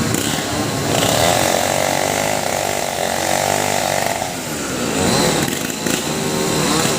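STIHL two-stroke chainsaw revving up about a second in and holding a high, steady whine for about three seconds. It then drops back with a falling pitch and revs up and down again.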